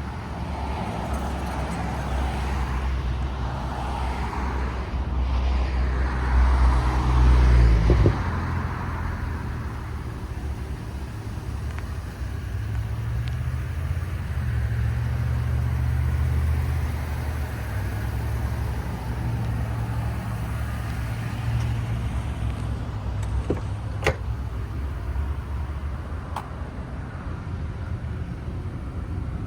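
Chevrolet Avalanche pickup's V8 engine running with a low rumble that shifts in pitch, growing louder about six seconds in and easing off around eight seconds. A sharp click sounds about twenty-four seconds in.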